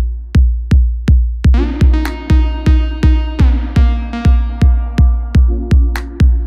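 Background electronic music with a steady, heavy kick drum beat, close to three beats a second; sustained synth chords come in about one and a half seconds in.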